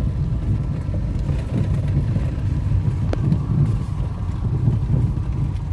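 Car on the move: a steady low engine and road rumble.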